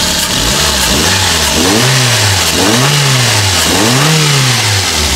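Daihatsu Luxio engine revved about once a second, its pitch rising and falling smoothly three or four times. It runs clean, without the stutter and misfire it had while its injector connector was loose.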